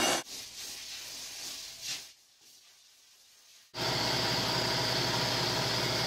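Gas torch flame hissing steadily, coming on suddenly about two-thirds of the way in, heating a hammered stainless steel buckle to bring up its heat colours. Before it, the drill-press buffing wheel's noise cuts off at the very start, followed by a quiet stretch.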